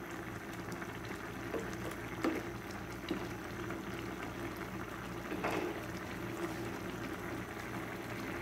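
Squid adobo sauce simmering hard in a frying pan, bubbling and crackling steadily with a few louder pops, as the sauce boils down toward dry.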